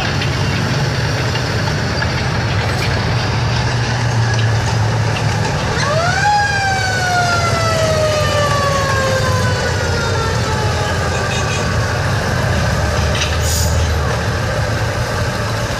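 T-34 tank's V12 diesel engine running as the tank drives slowly past, a steady low rumble. About six seconds in, a siren-like tone sweeps up quickly and then slides slowly down over about four seconds.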